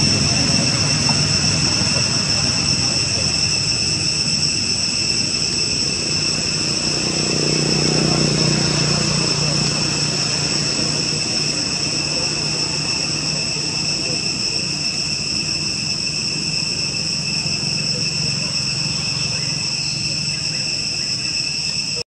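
Insect chorus shrilling in a steady, unbroken drone, over a low hum that swells briefly about a third of the way in.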